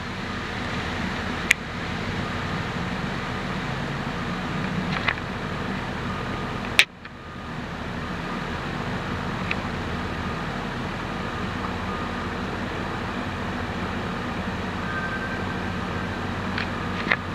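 Steady rumble of a diesel dump truck idling amid street traffic. Faint short beeps repeat about once a second, and two sharp clicks stand out, one about a second and a half in and one about seven seconds in.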